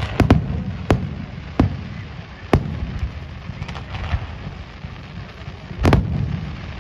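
Fireworks display: sharp bangs of bursting shells at uneven intervals over a steady low rumble. The loudest bangs come as a quick double bang at the start and another near the end.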